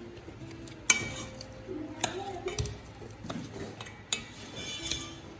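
Utensil clinking and knocking against a bowl while seasonings are mixed into pieces of carp for a marinade, with a sharp clink about a second in and a few more scattered through.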